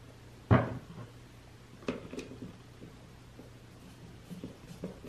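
Handling knocks and clicks as a tubular handle and tools are worked against a Jon Cutter G5800 chainsaw's plastic housing: one sharp knock about half a second in, two lighter clicks around two seconds, then a few faint ticks near the end.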